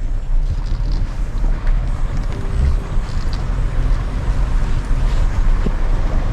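Off-road vehicle running steadily as it crawls a rough, rocky trail, a low continuous rumble with wind buffeting the microphone.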